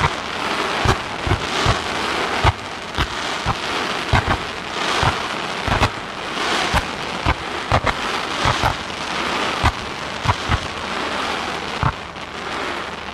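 Ground-level firework barrage of fanned comets and mines: mortars thump off in rapid succession, about one or two a second, over a steady dense hiss and crackle of burning stars. It thins out near the end as the volley finishes.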